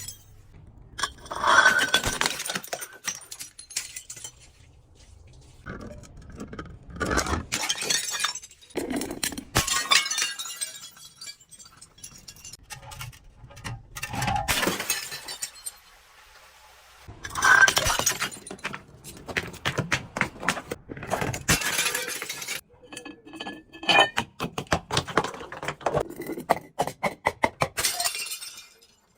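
Glass bottles breaking again and again, with shards crunching and clinking. The bursts come in clusters a few seconds apart, separated by short pauses.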